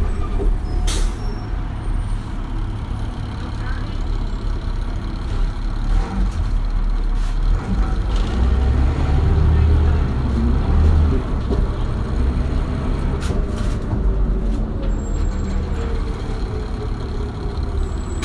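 2001 New Flyer D40LF transit bus under way, heard aboard: its Detroit Diesel Series 40 engine and Allison B400R5 transmission running steadily. The engine note swells about eight to eleven seconds in, and a whine falls in pitch over the last few seconds.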